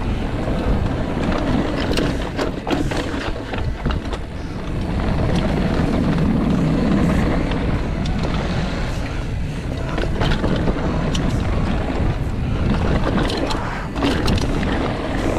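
Mountain bike rolling fast down a dirt trail: tyre and wind rush on the camera microphone, with the chain and frame clattering in many sharp clicks and knocks over bumps and rollers.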